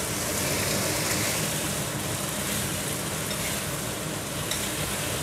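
Whole prawns sizzling steadily as they are stir-fried in a hot stainless steel wok, with a few light clicks from the metal spatula against the pan in the second half.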